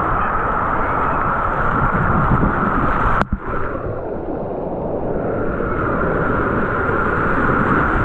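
Rushing, churning water of a wild-river water ride, heard close up at water level, with wind-like buffeting on the microphone. About three seconds in there is a sharp click, and the rush turns duller for a couple of seconds before it builds back.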